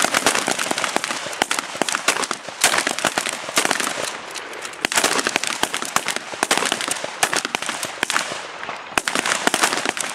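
Shotgun gunfire on a range: many sharp shots in quick, irregular succession, overlapping as if several guns fire at once.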